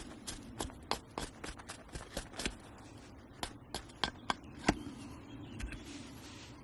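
A run of sharp, irregular clicks and knocks, about three a second, with a brief scraping hiss near the end.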